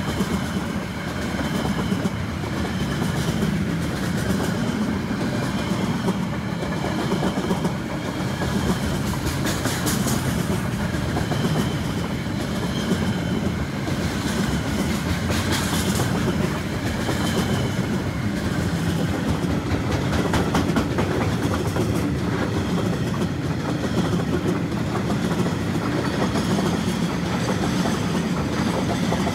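Freight train of container and flat wagons rolling past close by: a steady rumble of steel wheels on the rails with clickety-clack over the rail joints. Sharper metallic clicks stand out about ten and sixteen seconds in.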